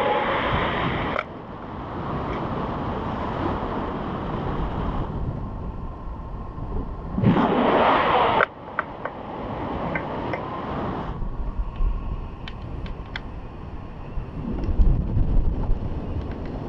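Wind rushing over an action camera's microphone on a tandem paraglider in flight, as a rough steady noise. It is loudest for the first second and surges again briefly about seven to eight seconds in, with a few faint clicks after that.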